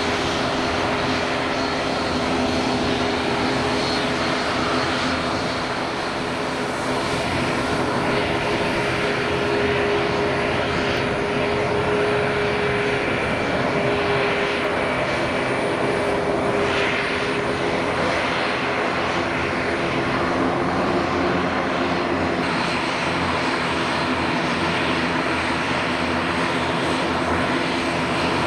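Airliner engines running: a continuous, steady drone with a few low humming tones in it.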